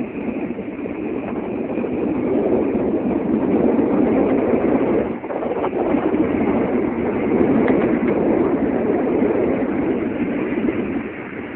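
Wind buffeting a camera microphone high up on a towed parasail: a steady, fluctuating rush with a brief lull about five seconds in.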